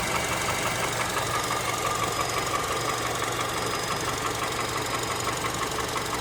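Honda Element's K24 2.4-litre four-cylinder engine running at a steady speed, with a rapid, evenly spaced knocking over the engine sound.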